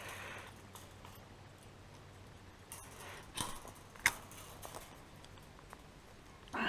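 Faint scattered clicks and scrapes of cyclone fence wire being handled and tied to a steel star picket post, with one short louder burst of sound near the end.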